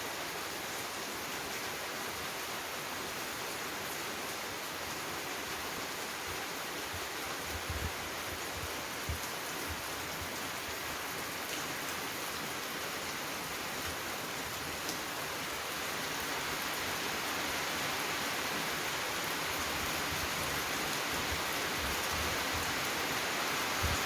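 Heavy storm rain pouring down with wind, a steady hiss that grows slightly louder in the second half, with a few brief low thumps of wind buffeting the microphone about a third of the way in.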